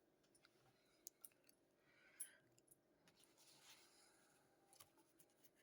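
Near silence: room tone with a few faint clicks and two soft hisses.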